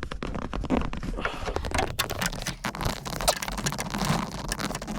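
Rapid, irregular clicking, knocking and scraping of metal parts being worked by hand as the heater control arm is slid off its cables.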